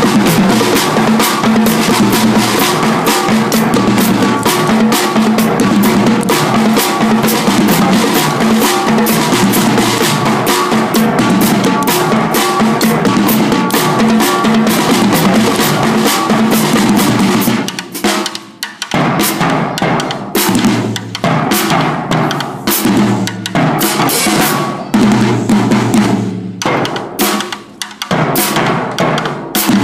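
Marching drumline of snare and bass drums playing a dense, continuous cadence. About 18 seconds in it breaks off briefly and comes back as shorter, punchy phrases with short pauses between them.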